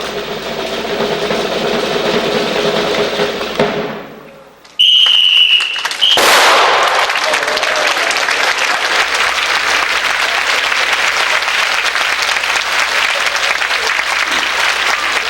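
Audience applauding steadily, starting right after a single loud, high tone about a second long. Before that, a steady droning sound fades away about four seconds in.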